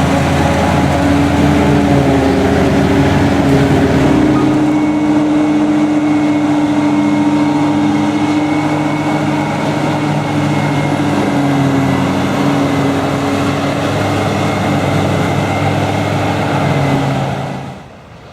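Heavy farm diesel engine running steadily under load. Its tone shifts about four seconds in, and the sound drops away sharply near the end.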